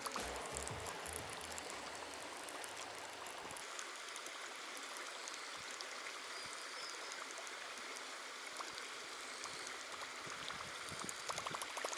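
A steady, faint rush of flowing water, with background music fading out in the first few seconds.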